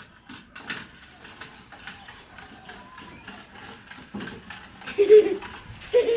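Light clicking and patter of a greyhound's claws as she chases a small toy car across the floor. Two short, loud vocal sounds come about five and six seconds in.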